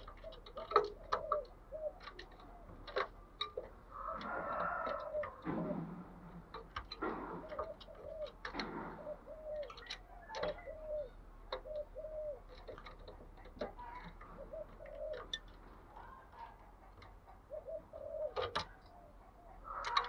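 Spotted dove cooing in a run of short, low, quickly repeated coos, the 'thúc gù' calling style of a decoy dove. Sharp clicks are scattered throughout, with short bursts of noise about four and eight seconds in.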